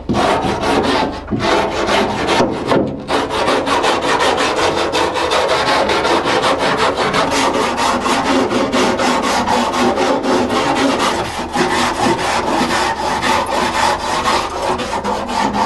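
Hand wire brush scrubbing old padding material off the bare sheet-steel inner roof and rear quarter panels of a 1956 VW Beetle, in rapid back-and-forth strokes. There are short breaks about a second and three seconds in.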